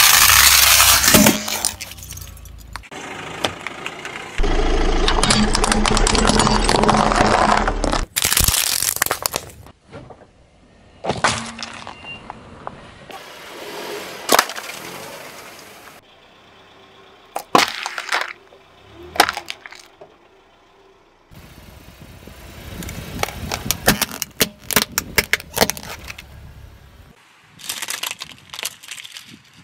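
A car tyre rolls over and crushes one object after another: a hollow plastic toy, aluminium drink cans and a pile of plastic clothespins. Each crush is a run of sharp cracks, crunches and bursts, with abrupt cuts from one crush to the next.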